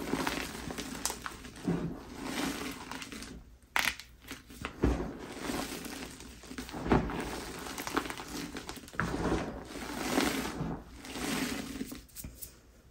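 Hands squeezing and crumbling reformed gym chalk: soft, powdery crunching that swells and fades every second or two, with a few sharper cracks of chunks breaking apart. It fades near the end as the powder is sifted through the fingers.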